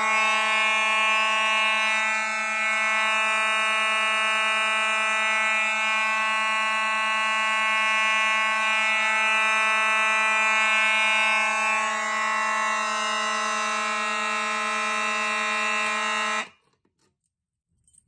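Mechanical fire alarm horns buzzing continuously and loudly, triggered by a pulled pull station. The note is a steady, unbroken buzz with no temporal pattern, because no sync module is fitted. It cuts off suddenly near the end.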